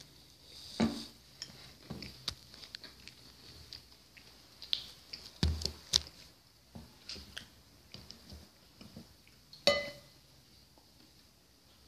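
A person eating close to the microphone: chewing and mouth sounds mixed with scattered small clicks and knocks of dishes and cutlery. A sharp clink that rings briefly comes near the end.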